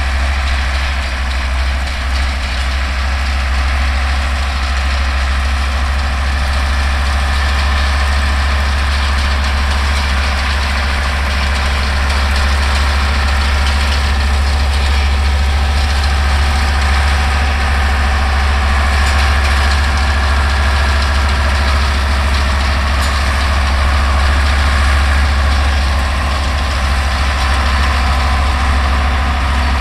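Older Deutz tractor's diesel engine running steadily, pulling and driving a New Holland 644 round baler whose machinery runs with it without a break.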